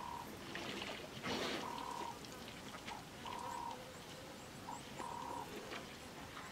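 A bird repeating a plain whistled note, a short pip followed by a longer held note, about every second and a half. About a second in there is one louder rush of noise, and a low wet rustle runs underneath.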